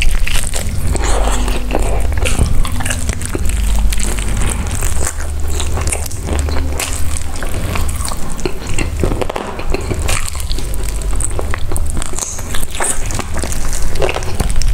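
Close-miked biting and chewing of crispy fried chicken: a dense run of irregular crunches and crackles over the deep, wet sound of chewing.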